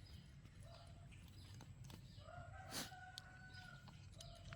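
Faint chicken calls over low background noise: a short call under a second in, then a rooster crowing once for about a second and a half around the middle, with a sharp click partway through it.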